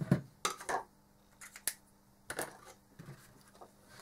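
A plastic lid being marked with a felt-tip marker and handled on a work mat: a series of short scratchy strokes and light plastic clicks.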